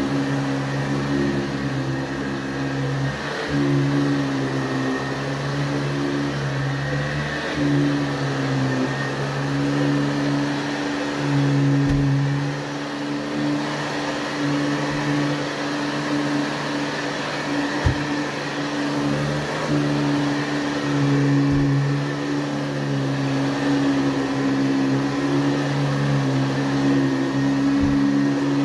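1977 Hoover-built JCPenney Convertible upright vacuum cleaner running with a steady motor hum and whoosh. The hum rises and falls a little in pitch and level every few seconds, with a few light clicks.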